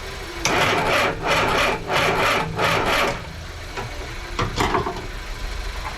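About six coarse scraping strokes in quick succession, like sawing or filing, followed by a few light knocks, over a low steady engine-like rumble.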